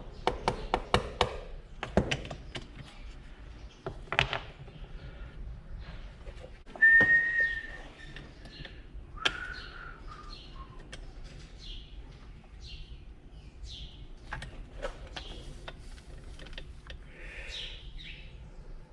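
Birds chirping and calling, with a clear whistle-like note about seven seconds in, the loudest sound. Quick clicks and knocks from handling the string trimmer's parts and tools come in the first couple of seconds and again around four seconds.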